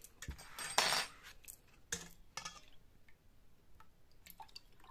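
Metal ladle clinking and scraping against a stainless steel mixing bowl and a small glass yogurt jar while a milk-and-yogurt mixture is ladled into the jar. There are several sharp clinks, the loudest a short scraping rush about a second in, then lighter taps.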